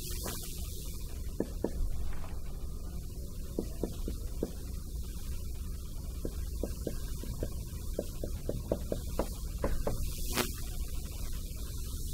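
Marker writing on a whiteboard: irregular short taps and strokes, with one sharper tap about ten seconds in, over a steady low room hum.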